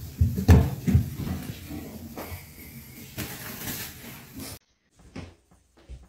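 Several dull knocks and bumps with rustling close to the microphone, loudest in the first second. It cuts off abruptly three-quarters of the way through, leaving a few faint light taps.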